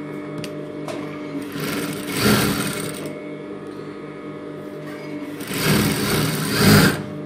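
Industrial flatbed sewing machine stitching in two short runs, the first about a second and a half in and a longer one about five seconds in, over a steady hum.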